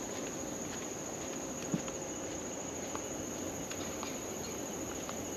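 Steady high-pitched chorus of insects such as crickets. Faint, irregular taps of footsteps come through it, with one low thump about two seconds in.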